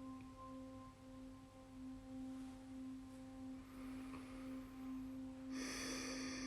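A faint, steady held tone with a few overtones, gently swelling and fading, as a meditation begins; about five and a half seconds in, a bright, higher-pitched shimmering ring starts suddenly over it.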